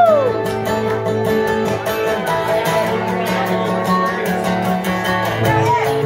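A live acoustic band playing, led by several acoustic guitars strumming a steady rhythm. A long held high note slides down and stops just after the start.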